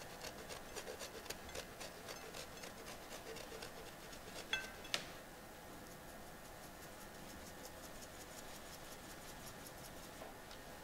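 Parmesan being grated over a plate of gnocchi: light, quick scraping strokes, about four or five a second, for the first few seconds. Two sharper clinks come a little before halfway, then fainter ticking follows.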